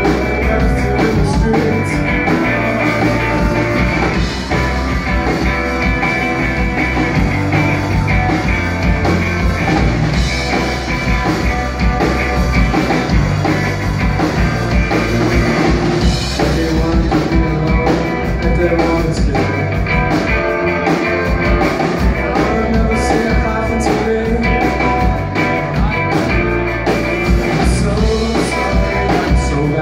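Live amplified rock band playing loudly, with a singer over guitar, bass and drums, heard from the audience in a club.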